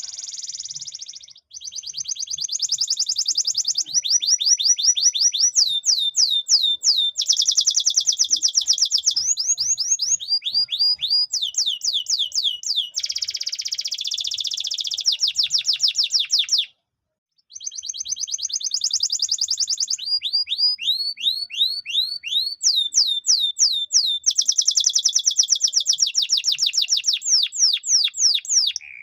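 Yellow canary singing a long run of rolls and trills: phrase after phrase of fast, repeated high notes that each sweep downward, changing pattern every second or two, with one short break a little past halfway.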